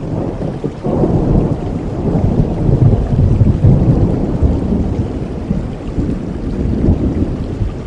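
Rain falling steadily, with a long roll of thunder that breaks in about a second in, swells, and slowly fades away.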